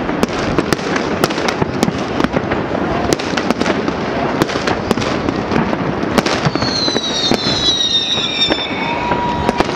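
Distant fireworks going off in a dense, continuous barrage of bangs and crackle. Around two thirds of the way through, a high whistle slides down in pitch for about two seconds over the bangs.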